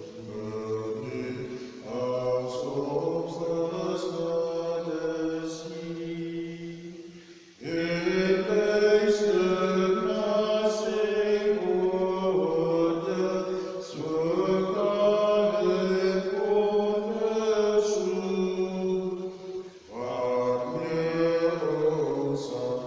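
A hymn sung in long phrases, each lasting six to seven seconds with a short break between, as the entrance hymn that opens the Mass.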